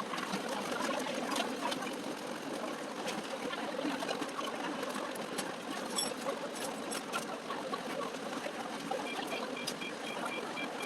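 Busy market-restaurant ambience: a steady murmur of voices with scattered clinks and knocks, and a short run of quick, evenly spaced high beeps near the end.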